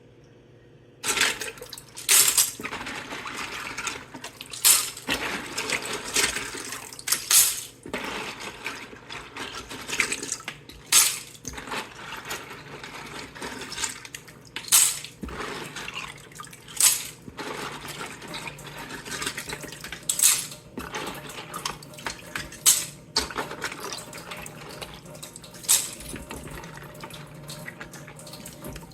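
Wet LEGO bricks clattering against hard plastic as they are moved and handled in a salad spinner, with water trickling and dripping. The clacks are loud, sharp and irregular, a dozen or so, coming every second or few seconds.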